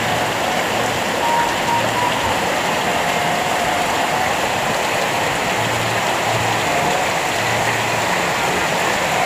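Heavy rain falling steadily on clay-tile roofs and streaming off the eaves, an even, unbroken hiss.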